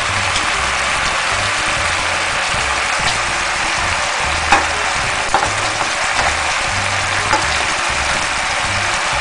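Chicken pieces in a thick sweet soy glaze sizzling steadily in a wok, the cooking water boiled off so the sauce is frying down. A few sharp metal clicks of tongs come midway as pieces are lifted out.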